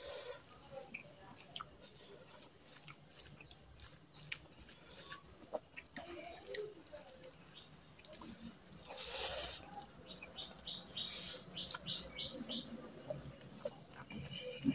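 Close-up eating sounds: wet chewing and lip smacks from mouthfuls of rice and curry, and fingers squishing rice into curry gravy, with a longer squelching rustle about nine seconds in.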